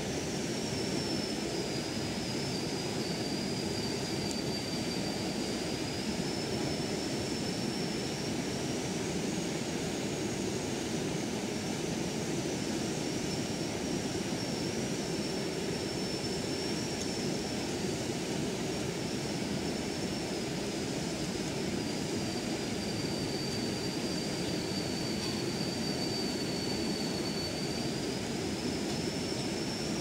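Steady running noise of a trash-screen cleaner (the inflow facility's debris remover), with a thin high whine that slowly wavers up and down in pitch.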